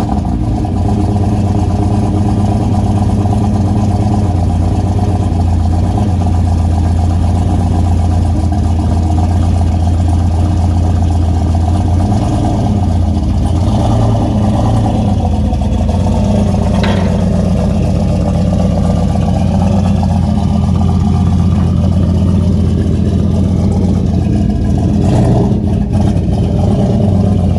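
Turbocharged LS V8 in a Chevrolet Silverado with a newly fitted full 4-inch Gibson Metal Mulisha turbo-back exhaust and tailpipe, idling steadily just after start-up.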